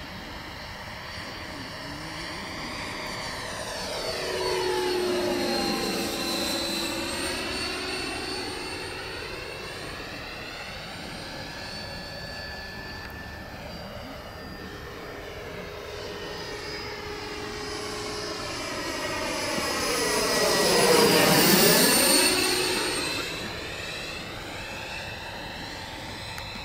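FMS Super Scorpion RC jet's 90mm electric ducted fan whining in flight as the jet makes two fly-bys. The sound swells to a peak about five seconds in and again, louder, about twenty-one seconds in, and the whine falls in pitch as the jet goes by.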